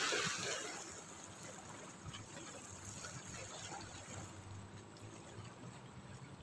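Small sea waves lapping and trickling against shoreline rocks, with a louder wash at the very start and then a steady, gentle wash.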